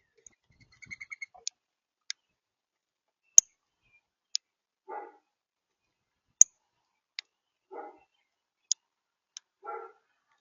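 Sharp, high bird chip notes repeated irregularly about once a second, with a short twittering call about a second in. Three short, rough dog barks come between them, quieter than the chips.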